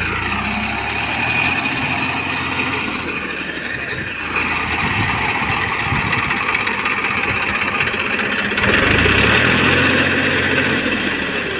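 Massey Ferguson 241 DI tractor's three-cylinder diesel engine running under load as the tractor, stuck in the mud of a flooded paddy field, tries to pull free, its rear wheels churning through muddy water. The engine gets louder about four seconds in, and louder again about two-thirds of the way through.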